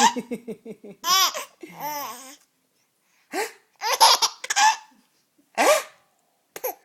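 A baby laughing at a fake sneeze. It starts with a quick run of pulsing laughs, then comes in about half a dozen short, high-pitched bursts whose pitch rises and falls, with pauses between them.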